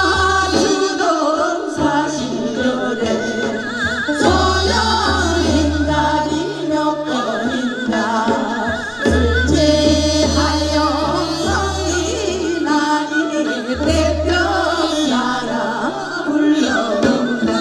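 Group of women singing a medley of Korean folk songs (minyo) into microphones with a wavering vibrato, over an amplified accompaniment with long held bass notes.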